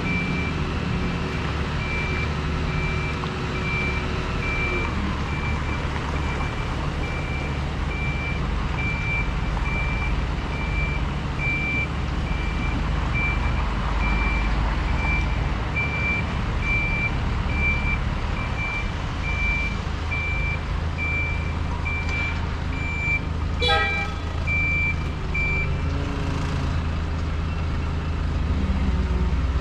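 A dump truck's reversing alarm beeps steadily about once a second over the running diesel engines of the dump truck and excavator, and stops a few seconds before the end. The engine note drops about four seconds in, and a single short clank sounds near the end.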